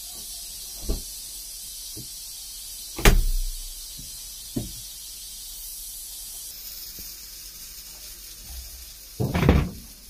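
Plastic bottles being picked up and set down on a stainless dishwasher top: a few separate knocks, the loudest about three seconds in. Near the end comes a louder clunk lasting about half a second as the dishwasher door is pulled open.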